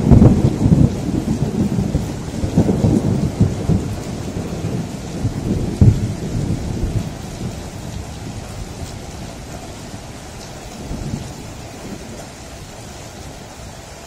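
Thunder rumbling loudly at first and dying away over about eight seconds, with a sharp crack about six seconds in and a softer rumble near the end, over steady heavy rain.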